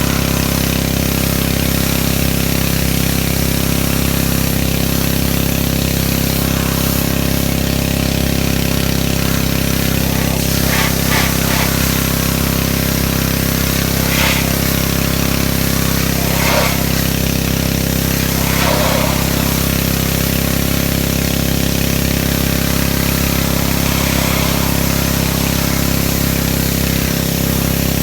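Engine-driven pressure washer running steadily, a constant engine drone under the hiss of the spray, with a few brief higher-pitched flares in the spray sound in the middle.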